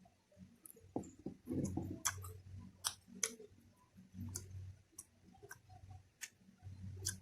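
Close-miked chewing, with sharp wet mouth clicks and smacks about once a second over a low rhythmic chewing rumble.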